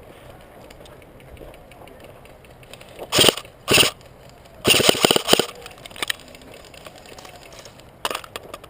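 Dry brush and twigs crackling and snapping in several short bursts, about three seconds in, a cluster around five seconds, and again near the end.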